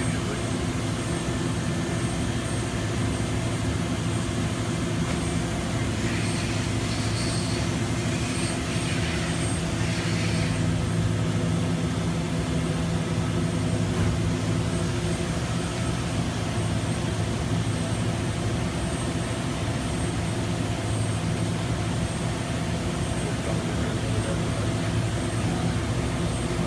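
A machine running steadily: a continuous low hum with a faint, high pulsing tone above it.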